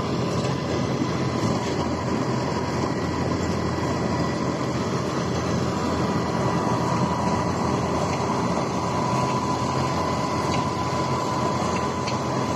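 Diesel engines of a JCB backhoe loader and a mud-bogged combine harvester running steadily during a cable-tow recovery, with a steady high whine above the engine noise.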